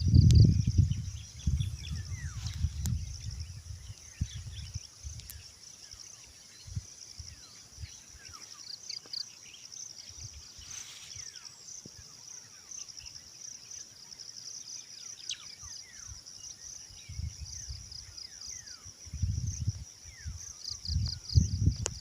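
A steady, high-pitched chorus of insects trilling, with faint short bird chirps. Bursts of low rumble in the first few seconds and again near the end.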